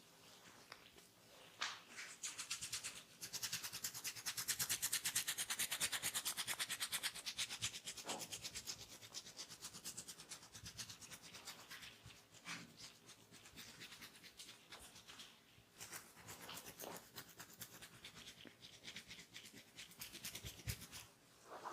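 Close rubbing and scratching against skin and hair from a barber's hands or tool. It comes as a fast run of strokes, densest and loudest a few seconds in, then thins to slower, separate strokes.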